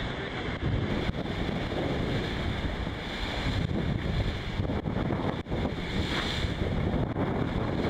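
Wind buffeting the microphone over the steady rush of water along the hull of an IMOCA 60 racing yacht sailing fast through rough seas, with a brief louder hiss about six seconds in.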